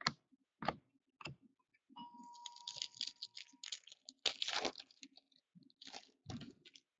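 Trading cards and pack wrapping being handled at a table: a few sharp clicks and taps, then stretches of crinkling and rustling.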